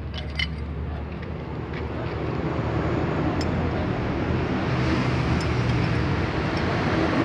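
Road traffic noise swelling over several seconds, as of a vehicle passing, over a steady low engine hum. A few light clicks sound about half a second in.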